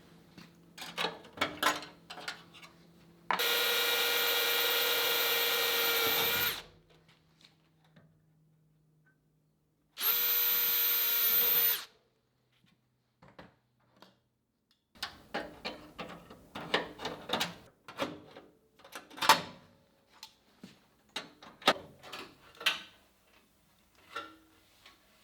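Handheld power tool run twice, about three seconds and then two seconds, with a steady high whine, then a stretch of scattered clanks and knocks of tools and metal being handled.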